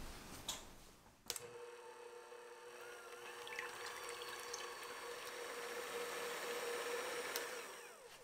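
Electric hand mixer whirring steadily as its twin wire beaters whip egg whites to a foam in a glass bowl. It starts with a click a little over a second in, grows slightly louder, and stops just before the end.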